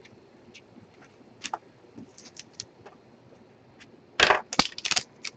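Trading cards and packaging being handled: a few scattered light clicks, then a burst of loud crackling clicks about four seconds in.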